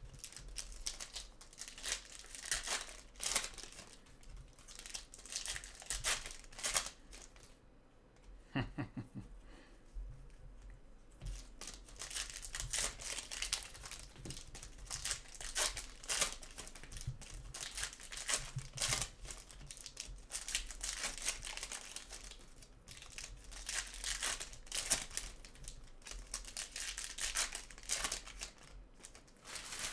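Foil trading-card pack wrappers crinkling and tearing as packs are opened by hand: a busy run of crackles, with a quieter stretch about eight seconds in.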